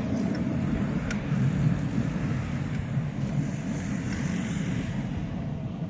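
Steady low mechanical rumble of a running vehicle, with a few sharp clicks.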